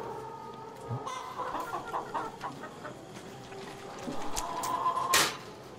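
Caged hens clucking, then about four and a half seconds in a rising note ends in a sudden, loud pop as a hen lays an egg onto the wire cage floor.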